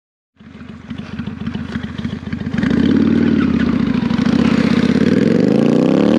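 Motorcycle engine idling with a rapid, even pulse, then revving from about two and a half seconds in, its pitch rising and wavering, with a quick drop and climb again at the very end.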